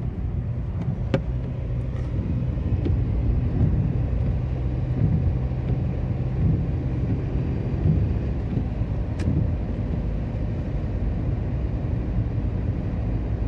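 Steady low rumble of a car's engine and tyres heard from inside the cabin while driving on a wet road, with a few light clicks.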